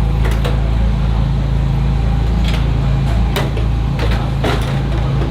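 Steady low machine hum, with several short sharp clicks and knocks scattered over it.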